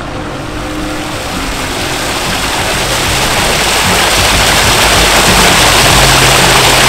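Fountain water spraying and splashing into a pond, a dense rushing noise that grows steadily louder.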